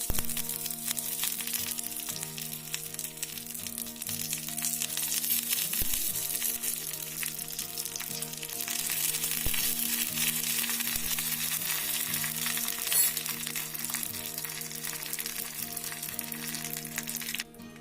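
Hot coconut oil and ghee sizzling and crackling with mustard seeds for a tempering, under background music of held tones. The sizzle cuts off abruptly near the end.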